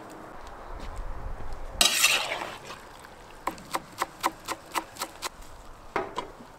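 A brief loud rush of noise about two seconds in, then a kitchen knife chopping parsley on a wooden cutting board: about eight quick chops, roughly four a second, followed by two more knocks near the end.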